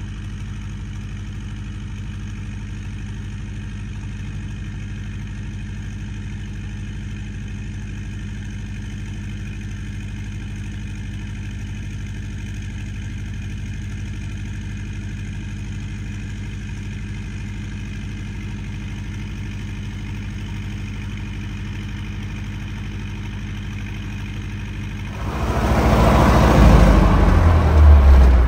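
Diesel engine of an MTZ-80 tractor running steadily at idle. About 25 seconds in it revs up and gets much louder, as the tractor is put to work.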